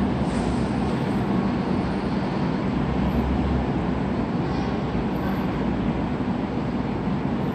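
Steady rumble of a Hong Kong Light Rail train running along the track and moving away.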